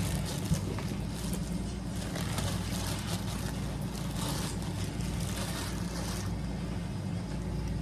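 A steady low mechanical hum, with intermittent rustling and crinkling of plastic packaging being handled until about six seconds in.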